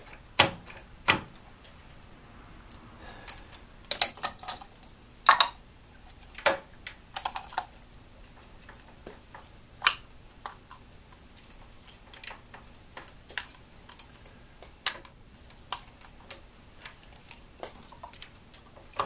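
Irregular sharp clicks and taps as a Bosch front-plate distributor is worked by hand into its seat on a Ford Model T engine's front timing cover, with quiet gaps between the knocks.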